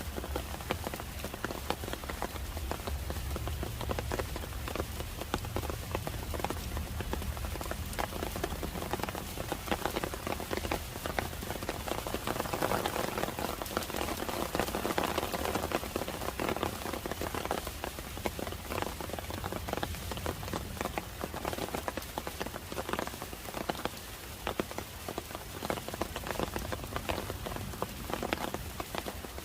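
Steady rain falling, with many separate drops ticking on nearby surfaces. It gets heavier for a few seconds around the middle, and a low rumble sits under it for the first several seconds.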